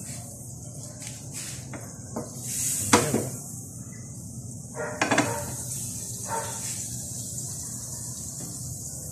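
Butter melting in a hot nonstick frying pan over a gas burner, with a faint steady sizzle. A few short knocks and clatters of cookware come in between about two and six and a half seconds in.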